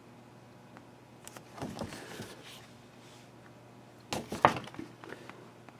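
Paper and card pages of a folder being handled and turned: a rustle about a second and a half in, then a louder cluster of sharp flaps and rustles around four seconds in, with a few fainter ones after.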